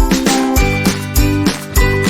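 Upbeat background music with a steady beat and bright, bell-like melody notes.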